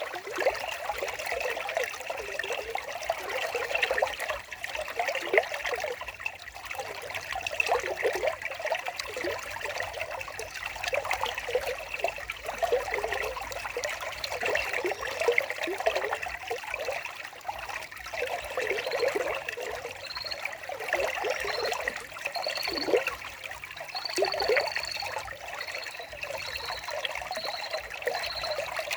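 Water trickling and bubbling steadily, like a small stream. About two-thirds in, a short high note starts repeating roughly once a second.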